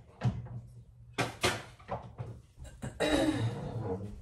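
A few sharp knocks and bumps of things being handled in a kitchen, then about a second of louder rustling clatter near the end.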